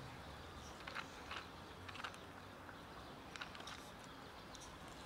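Cat eating dry kibble, with faint, irregular crunches as it chews.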